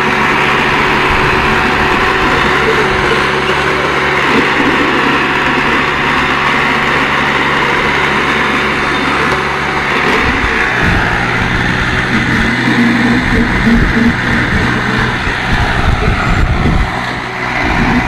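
Diesel engines of two farm tractors, a Massey Ferguson 5245 DI and a Mahindra, running hard under heavy load as they pull against each other, rear tyres spinning in the dirt. The engine note drops to a lower pitch about ten seconds in.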